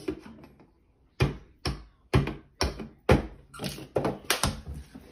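A series of sharp knocks and taps from hands and a paper cup striking a wooden tabletop and plate. They come about two a second and bunch closer together a little after three seconds in.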